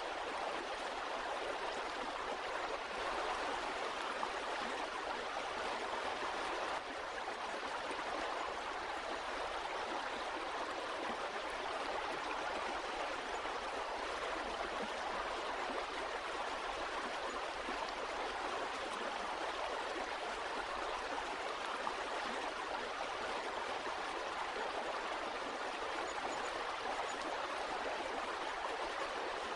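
Stream water flowing and gurgling over rocks in a steady, even rush.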